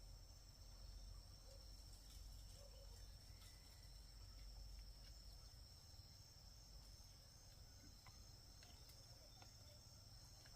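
Near silence with a faint, steady high-pitched insect drone over a low rumble, and a few faint clicks.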